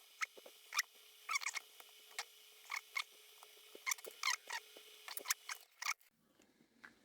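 Light, irregular clicks and scratches of small parts being handled while working inside a handheld CB radio. They stop about six seconds in.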